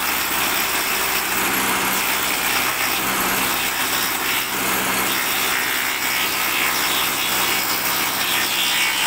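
A bench woodworking machine running steadily, its cutter working through a board fed by hand.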